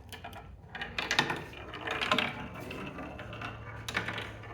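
Handmade wooden game mechanism clicking and clattering irregularly as the piece put into it runs through its wooden parts.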